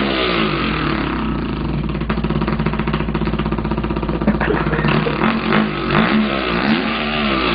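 A man imitating a dirt bike engine with his mouth: a buzzing, rattling tone that drops in pitch at the start, holds steady, then revs up and down in swoops near the end.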